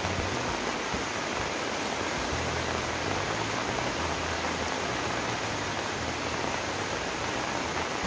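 Heavy rain pouring down steadily, an even, dense hiss.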